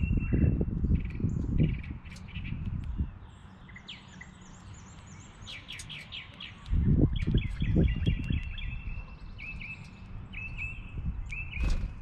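Several songbirds calling and singing, with short high chirps and runs of quick repeated notes. A low rumbling noise swells twice, at the start and again about seven seconds in.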